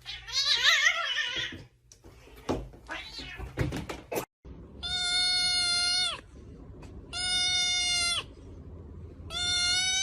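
Domestic cats meowing: first a loud wavering yowl, then, after a cut, three long meows held at a steady pitch, evenly spaced a couple of seconds apart.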